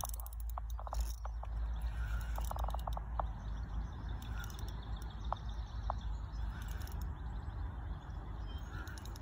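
Outdoor ambience at a lake. Wind rumbles steadily on the microphone, small birds chirp now and then, and a few short clicks come through, mostly in the first three seconds.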